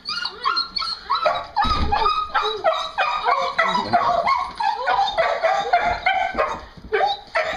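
A dog whining and yelping in quick, high-pitched cries, several a second, with a low thump about two seconds in.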